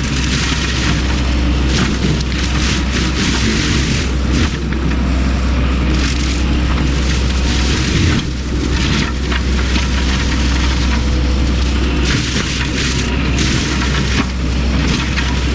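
Cat 308 excavator running hard and driving a Fecon Bullhog forestry mulching head that is grinding through brush and wood: a loud continuous low rumble with irregular crackling and snapping throughout.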